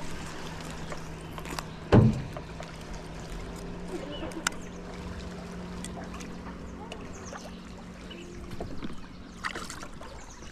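A steady low motor hum, with one loud knock about two seconds in.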